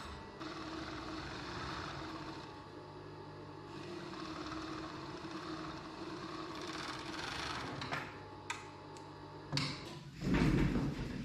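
Overlock sewing machine (serger): a few light clicks as it is handled, then about ten seconds in it runs loudly in a short burst of stitching.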